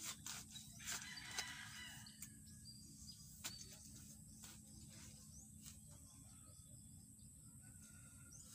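A shovel digging into soil, a few scrapes and knocks in the first three seconds or so, with a rooster crowing faintly in the background.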